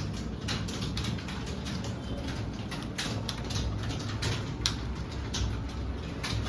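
Computer keyboard being typed on: irregular key clicks, several a second, over a steady low hum.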